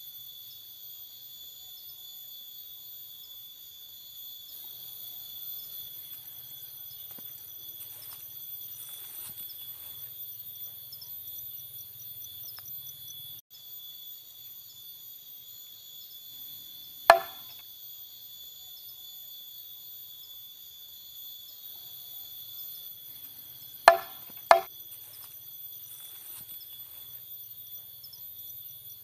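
Night chorus of crickets and other insects trilling steadily in several high pitches. A sharp knock about 17 seconds in and two more close together around 24 seconds stand out as the loudest sounds.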